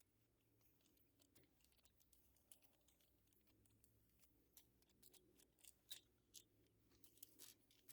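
Faint, scattered small clicks and ticks of a screwdriver backing out the tiny screws on a PS5 controller's plastic haptic cover, coming more often in the second half.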